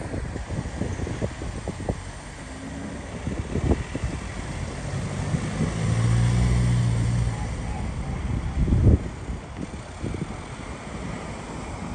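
Wind buffeting a phone microphone over the steady noise of street traffic, with a low hum for about two seconds in the middle and a louder thump near the end.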